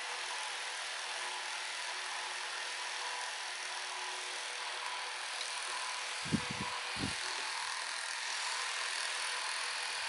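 Small 12-volt fan running off a mower's power socket: a steady airy whir with a faint motor hum. Two brief low knocks about six and seven seconds in.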